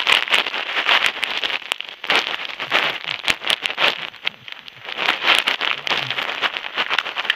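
Crackling and rustling handling noise on the camera's microphone, with many irregular sharp clicks, as the camera is moved about and rubbed.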